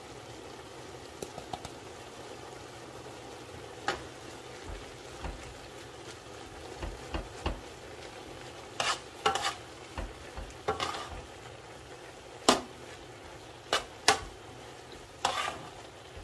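A metal spoon stirring raw chicken mince in a large steel bowl: wet mixing with scrapes and clinks of the spoon against the bowl. These come more often and louder in the second half, over a faint steady hiss.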